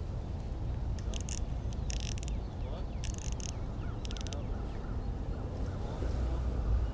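Spinning fishing reel's drag clicking in four short rapid bursts as a hooked fish pulls line off, over a low steady rumble.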